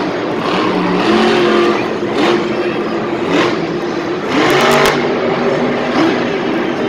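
Monster truck engine revving up and down as the truck drives across the dirt, echoing around a large enclosed stadium.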